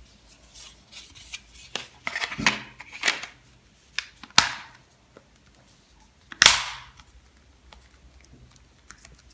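Plastic back cover of a Microsoft Lumia 535 phone being pressed into place over the battery, a string of sharp clicks and snaps as its edges catch, with handling rustle between; the loudest snaps come about four and a half and six and a half seconds in.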